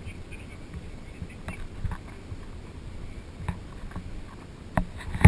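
Scattered light knocks and taps at irregular intervals over a low rumble, with one sharper, louder knock near the end.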